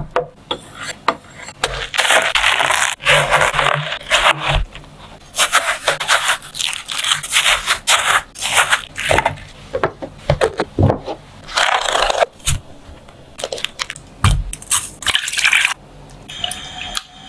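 A knife cutting through watermelon on a cutting board: a series of crisp scraping cuts, each lasting about half a second to two seconds, with scattered clicks and taps between them.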